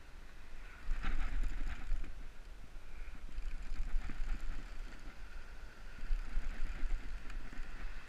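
Penn Senator 6/0 conventional reel working under the load of a hooked shark: a rasping, ratchety mechanical sound from the reel, coming in three stretches of a second or two each, over a steady low rumble of wind.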